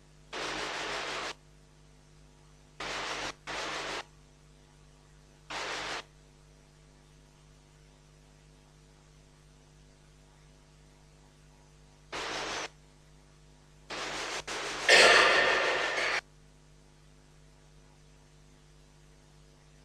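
Bursts of static hiss that switch on and off abruptly, seven times at irregular intervals, the longest and loudest near the end, over a low steady electrical hum.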